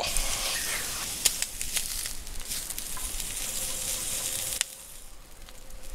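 Meat sizzling on a wire grill over hot charcoal, a steady hiss with a few sharp pops. About four and a half seconds in there is a click and the sizzle drops away.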